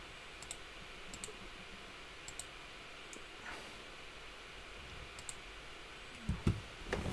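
Computer mouse button clicks: a few faint, sharp clicks spaced a second or more apart. A louder low thump comes near the end.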